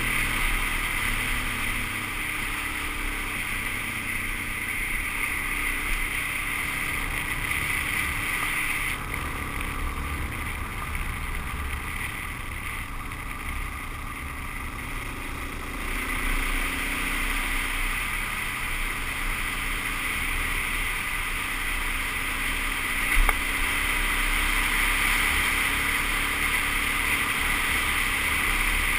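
Suzuki DR-Z400S single-cylinder four-stroke engine running steadily while riding, with wind noise on the microphone. It goes quieter and duller for several seconds in the middle, and there is one sharp knock about 23 seconds in.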